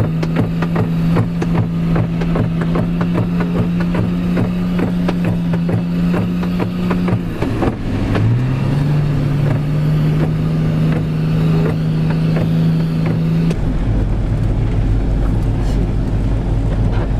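Old Nissan Patrol 4x4 driving off-road, its engine heard from inside the cabin, running steadily under load while the body knocks and rattles over the rough track. About eight seconds in the engine note drops and climbs back up through a gear change. Near the end the sound switches abruptly to a deeper rumble.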